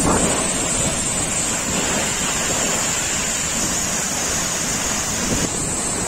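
Steady rush of water from a waterfall, with wind buffeting the microphone.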